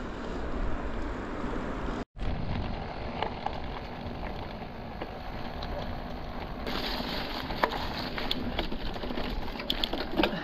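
Riding noise from a mountain bike on a dirt trail: wind buffeting the microphone and the tyres rolling, with small scattered clicks and rattles. The sound cuts out for a moment about two seconds in and changes again past the middle, as between edited clips.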